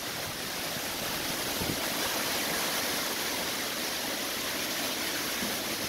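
Heavy rain pouring down in a storm, an even, unbroken hiss.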